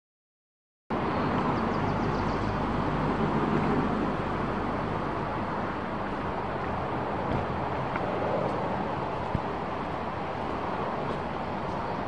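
Steady outdoor background noise, a continuous even rushing hiss. It cuts in about a second in, after a moment of dead silence.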